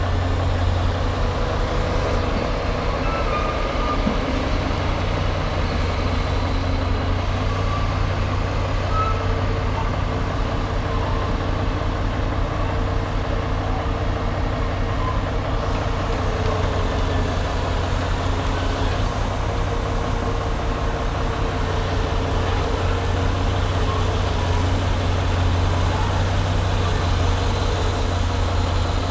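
Heavy diesel machinery running steadily with an even, deep drone as a log loader lifts logs onto a log truck.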